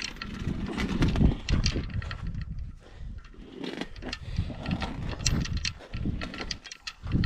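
Irregular knocks, clicks and clatter of hands-on work handling an engine and its lifting gear to raise it off the engine stand.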